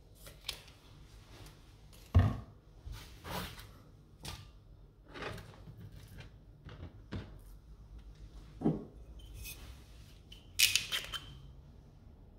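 Scattered kitchen handling noises: a knock about two seconds in, then intermittent soft scrapes and rustles as sliced red onion is gathered off a plastic chopping board, and a sharp crackle near the end as a bottle cap is twisted off.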